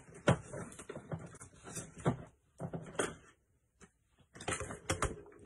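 Scattered knocks and clicks of craft supplies being handled on a desk, a few sharp taps one to two seconds apart, with a short quiet pause just after the middle.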